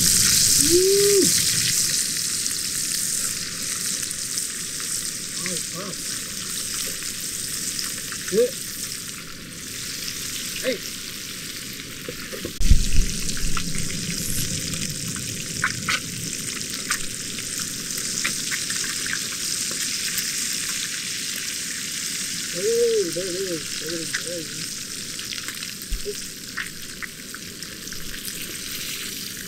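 Trout fillets frying in hot oil and butter in a frying pan: a steady sizzling hiss with small spits and crackles, and one dull knock about halfway through.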